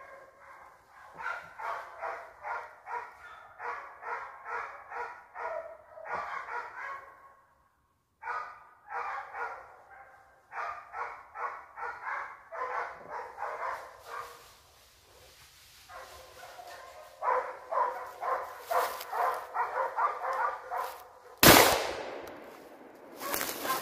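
Hunting dogs baying during a wild boar hunt: rapid runs of barks, about three a second, in bouts broken by short pauses. Near the end comes a single very loud gunshot.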